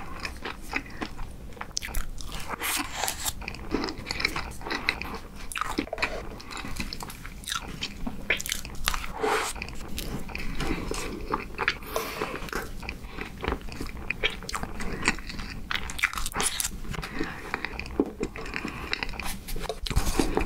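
Close-miked chewing of soft banana cream cake, with many small wet mouth clicks and smacks throughout.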